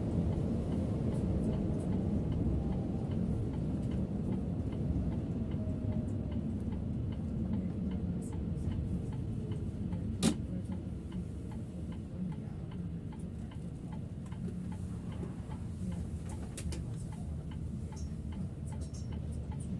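Cab interior of a Setra S 531 DT double-decker bus on the move: a steady low engine and road rumble, with an even ticking like the turn-signal indicator. One sharp click stands out about ten seconds in.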